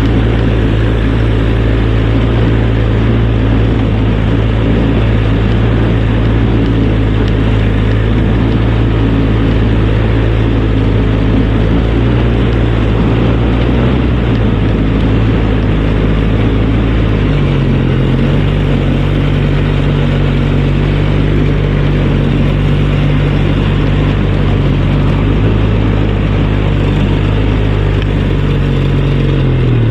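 ATV (four-wheeler) engine running steadily while being ridden, its pitch stepping up about two-thirds of the way through.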